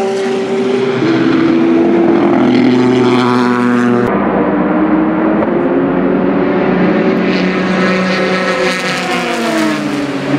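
Ford GT GTE race car's twin-turbo V6 at full racing speed. It shifts up twice, each shift a step down in pitch. After an abrupt cut about four seconds in, a second pass follows: the engine note climbs steadily, then falls away over the last two seconds as the car goes by.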